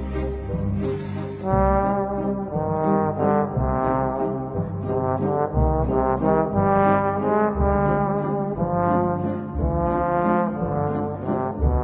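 Background music: a melody of held notes over a pulsing bass beat.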